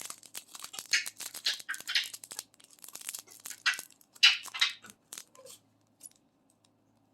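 Small plastic bags of diamond painting drills crinkling and rustling as they are handled, a quick string of short crackles that thins out after about five seconds.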